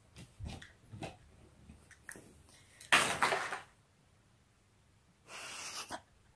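Movement and handling noises: a few light knocks and thumps, then a short loud rushing noise about three seconds in and a softer, breathy one near the end.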